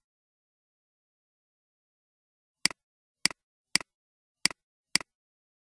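Computer mouse clicks: five sharp clicks about half a second apart, starting a little over two and a half seconds in, each a quick press-and-release double click.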